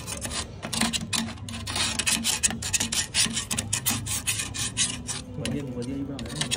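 Rapid, irregular scraping strokes, a rasping sound repeating several times a second over a steady low hum.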